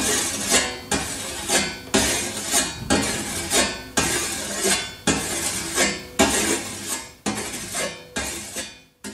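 Scythe blade being whetted by hand: a run of scraping metal strokes, roughly one a second, each with a short ring, stopping near the end.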